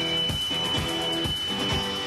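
Rock band playing an instrumental introduction: guitar over a steady bass-drum beat of about two and a half strokes a second, with a high tone held through it.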